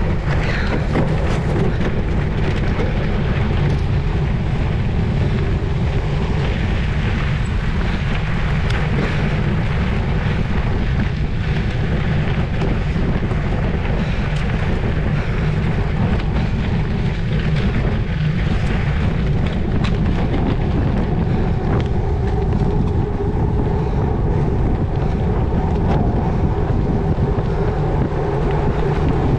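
Steady wind rumble on the microphone of a camera riding along on a cyclocross bike during a race, low and unbroken.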